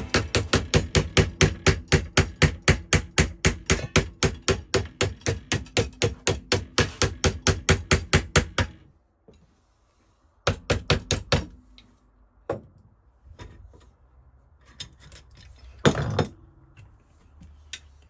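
Hammer blows on copper in a quick, even run, about five a second, stopping about nine seconds in. After a pause comes a short burst of blows, then a few single knocks.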